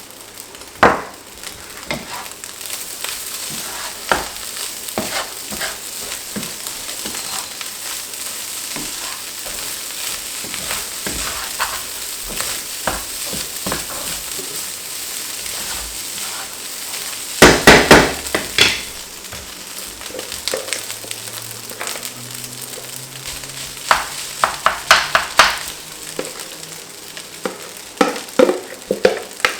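Fried rice sizzling in a hot pan while it is stirred, with a utensil scraping and knocking against the pan. It comes in bursts of strokes, the loudest about two thirds of the way through.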